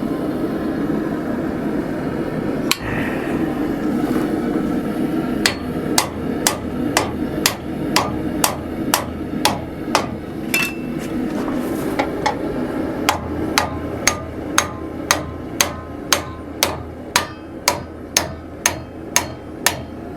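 Hand hammer striking hot steel clamped in a post leg vise to bend it square: a steady run of ringing blows, about two a second, that starts several seconds in after a single knock. A steady low drone runs underneath.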